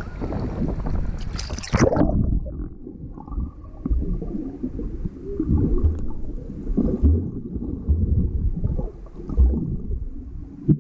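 Water heard through a waterproof action camera: surface splashing and wind until the camera goes under about two seconds in, then muffled underwater sloshing and gurgling with irregular dull low thumps.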